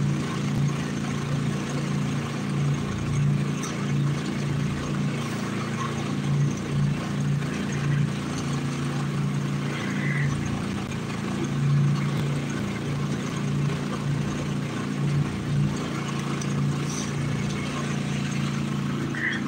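Engine on a bowfishing boat running steadily: a low, even hum that wavers slightly.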